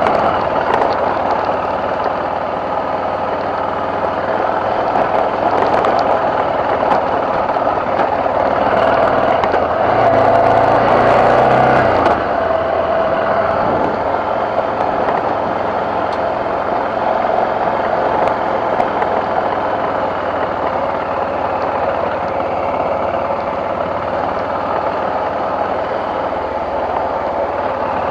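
BMW F650GS motorcycle engine running steadily under way, growing louder for a couple of seconds about ten seconds in before settling back.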